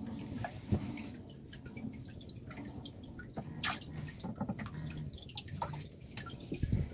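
Irregular water drips and small splashes in the water-filled hold of a fishing boat where live hilsa are swimming, with a couple of louder splashes, about a second in and near the end.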